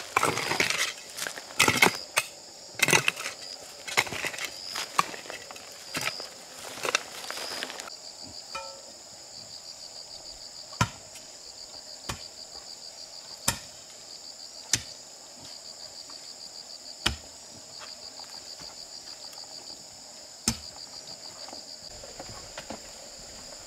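Insects chirping in a steady, fast-pulsing high trill, with single sharp knocks every one to three seconds. For the first eight seconds a busier run of crackling and knocking covers the chirping.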